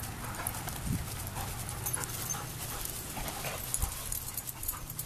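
A dog panting, with scattered small clicks and rustles.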